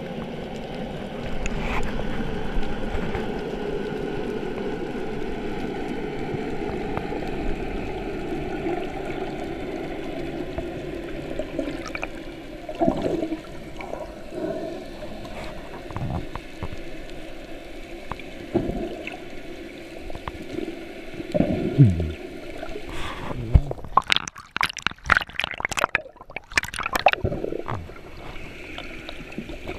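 Underwater scuba sounds: a steady low drone for the first half, then gurgling bubble bursts from a diver's exhalations through the regulator, loudest in a dense cluster about three-quarters of the way through.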